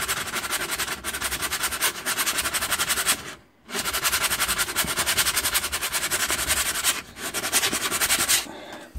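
Hand sanding with a sheet of sandpaper on an acrylic-painted canvas: quick, even back-and-forth rasping strokes, several a second, rubbing down dried blobs of acrylic paint. The strokes break off briefly about a third of the way in and stop shortly before the end.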